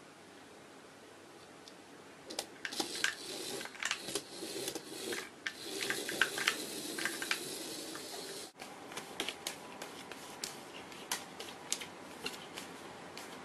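Small electric motor of a toy radio-controlled buggy running in spurts, with its plastic body and wheels clattering on a wooden floor as a cat paws at it. After a sudden cut about two-thirds of the way in, scattered light taps and clicks.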